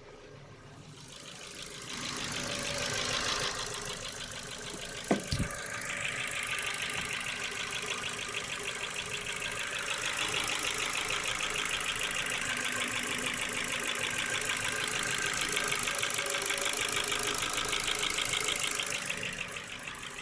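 Ford Focus II 1.6-litre 100 hp petrol engine running with a fast, even chattering tick. The owner cannot tell whether it comes from the valves or from cylinder wear after the piston rings were replaced without boring the cylinders. A single sharp knock comes about five seconds in.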